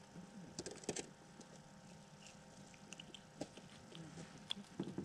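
Faint, scattered little clicks and taps of hands handling a small panfish and unhooking it from an ice-fishing jig.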